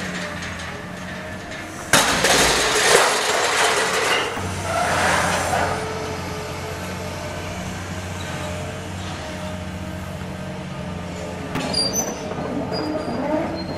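Demolition machinery running with a steady low engine hum; about two seconds in, a loud crash of falling rubble and breaking material rattles on for a few seconds, with lighter clinks of debris near the end.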